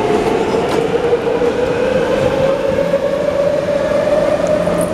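MTR C-Train electric multiple unit heard from inside the car while it runs alongside a platform: a steady electric traction whine that rises gently in pitch, over the rumble of wheels on the track.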